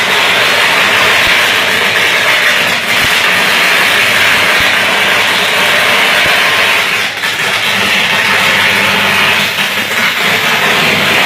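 Short circuit arcing on a railway's overhead electric line, giving off a loud, steady, roaring hiss.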